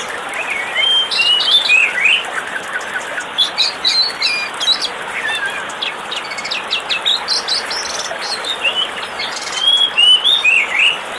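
Birds chirping and calling over and over in quick notes that slide up and down, over a steady rush of falling water from a waterfall.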